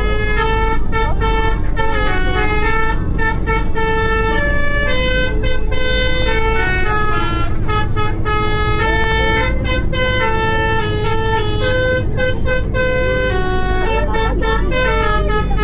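A continuous melody of held notes that step up and down in pitch, playing without a break over the steady low rumble of a moving bus.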